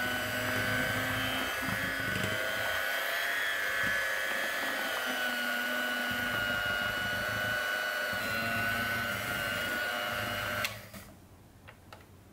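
Electric hand mixer running steadily, its beaters churning a wet, high-hydration bread dough; the motor whine dips slightly in pitch a couple of seconds in. It cuts off suddenly near the end, followed by a few faint clicks.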